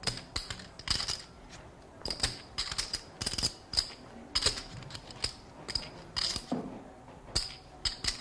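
Poker chips clicking together as a player handles and shuffles them at the table: irregular clusters of sharp clacks.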